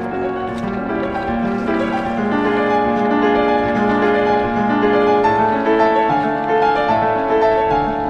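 Piano music: a slow melody of held notes over chords, climbing higher about five seconds in.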